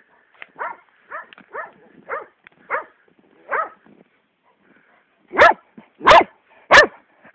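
Gordon setter barking: a run of about six short barks, then three much louder barks about two-thirds of a second apart near the end.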